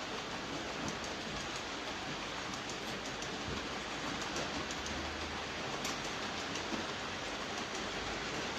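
Freight train rolling past, a steady noise of wheels on rails with a few faint clicks and a brief low hum about five seconds in.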